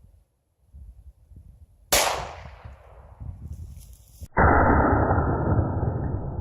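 A single gunshot about two seconds in, its report ringing away over a second or so. About four seconds in, a loud steady rushing noise starts abruptly.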